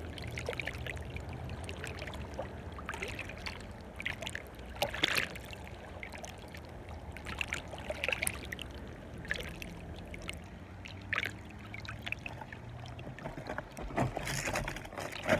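Water lapping and splashing at a shoreline in small irregular bursts every second or two, over a steady low hum.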